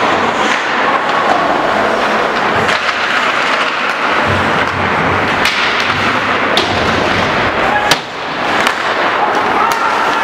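Ice hockey play: skates scraping the ice under a steady din, with several sharp clacks of sticks and puck. The loudest clack comes about eight seconds in.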